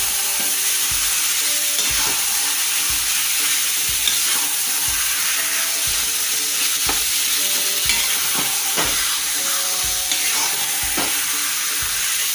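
Chicken pieces frying in oil with onion-tomato masala in a kadai, sizzling steadily while being stirred, the stirring utensil knocking against the pan about once a second.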